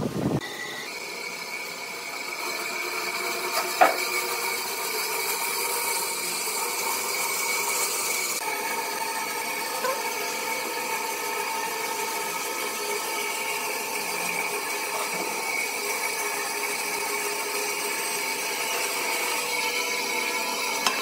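Bandsaw running steadily with a constant whine, its blade cutting through a thick wooden cylinder. There is one sharp click about four seconds in.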